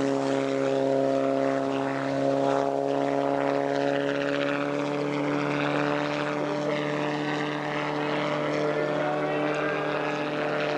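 Subaru engine of a homemade helicopter running at a steady speed, with its rotor turning, making a constant hum that barely changes pitch.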